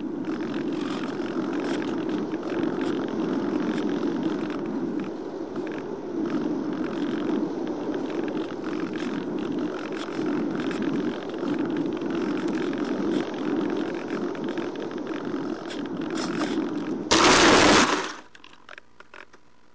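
Airflow rushing over the onboard microphone of an FPV model airplane gliding with its motor off. About 17 seconds in, a loud burst of noise lasting about a second as the plane lands in tall grass, then only a faint steady hum.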